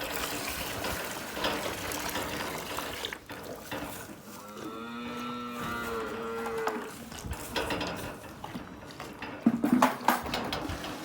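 A calf moos once, a single long call of about two seconds near the middle, over rustling and a few clattering knocks near the end.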